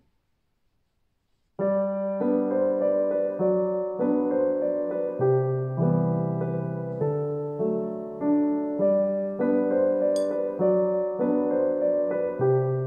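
Near silence, then about a second and a half in, background piano music begins: a gentle, repeating pattern of notes and chords.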